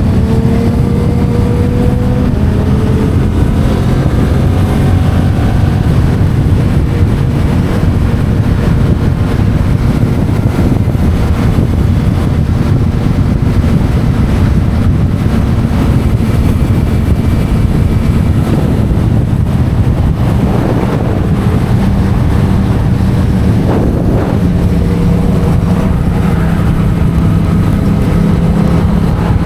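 Yamaha MT-07's parallel-twin engine running through an Akrapovic titanium exhaust while riding, its note mostly steady, with wind rushing over the microphone.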